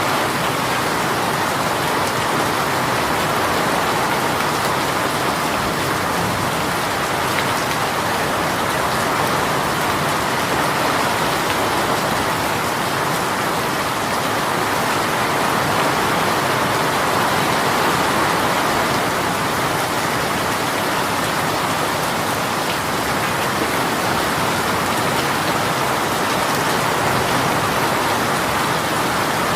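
Rain shower falling steadily, a dense, even hiss of rain with no letup or change in strength.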